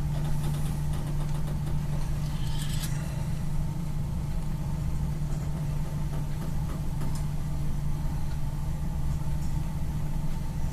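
Steady low drone of a motor tanker's engine and machinery heard inside a cabin, with a short hiss about two and a half seconds in and a few faint rattles.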